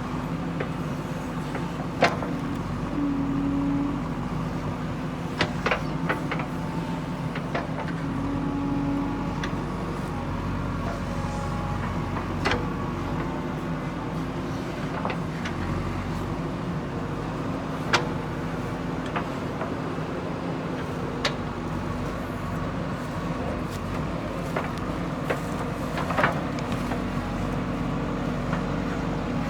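JCB 3DX backhoe loader's diesel engine running steadily while digging, with two short higher whines and a handful of sharp knocks.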